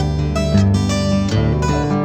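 Music: acoustic guitar strumming chords in a country-folk song, with no singing.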